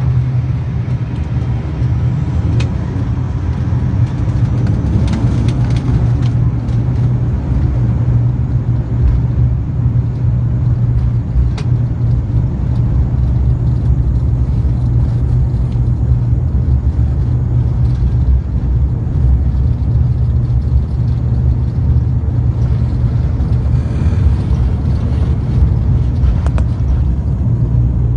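ATR 72-500 turboprop airliner's twin engines and propellers running, a loud, steady low drone with a few faint clicks.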